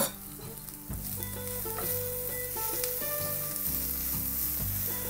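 Chopped onion, capsicum and green chillies sizzling in oil in a non-stick frying pan while being stirred with a silicone spatula: the steady hiss of sautéing vegetables. There is a sharp knock right at the start.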